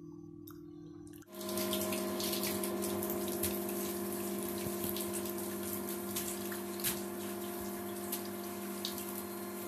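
Water running and splashing into a bathtub, cutting in suddenly about a second in, with a steady mechanical hum under it and small scattered drips and clicks.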